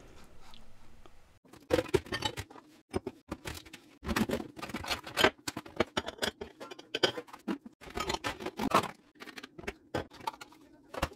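Plastic food-storage containers and lids clattering and knocking against each other as they are handled and pulled out of a crowded kitchen cupboard. The sound is an irregular run of clicks and knocks that starts about a second and a half in.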